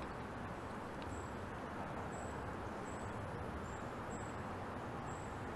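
Steady low outdoor background noise, with faint short high chirps about once a second.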